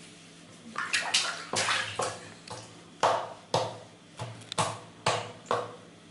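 Water splashing in a bath basin during a toddler's hair wash: a run of about nine short splashes starting about a second in, the loudest near the start and around the middle.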